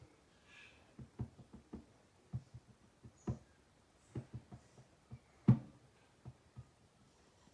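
Irregular light knocks and clicks of hard objects being handled, with one sharp, louder knock about five and a half seconds in.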